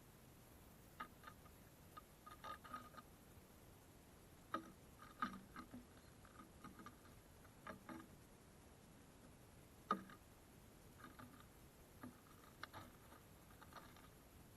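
Faint, irregular ticks and taps of small birds pecking at seed on a feeder, the loudest a sharp tap about ten seconds in.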